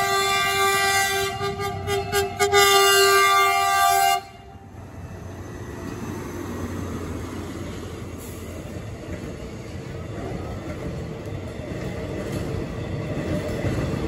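Passenger train's diesel locomotive sounding a long horn blast at a level crossing, with a brief dip in the middle; the horn cuts off about four seconds in. The locomotive and coaches then roll across the crossing with a steady running noise that slowly grows louder.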